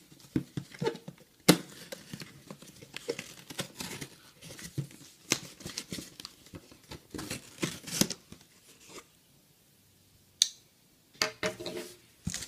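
Cardboard case of trading-card boxes being torn open by hand: irregular tearing, scraping and crinkling with sharp clicks, a brief quiet pause about nine seconds in, then a sharp click and more tearing near the end.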